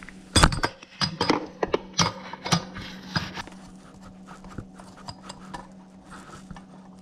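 Sharp metal clicks and knocks of an 11/16 wrench breaking loose the threaded back plug of a pancake compressor's air regulator, irregular for about three and a half seconds. After that, only faint handling clicks as the plug is turned out by hand, over a steady low hum.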